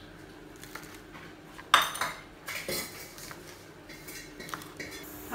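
Chef's knife chopping leafy greens on a plastic cutting board: irregular knocks of the blade on the board, the loudest a sharp knock just under two seconds in.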